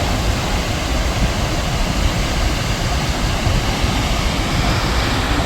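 Large waterfall heard up close: a loud, steady rush of falling water with a heavy low rumble, likened to a jet plane taking off.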